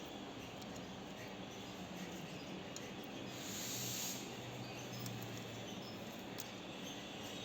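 Faint steady room noise with a low hum, a brief hiss about three and a half seconds in, and a few faint ticks.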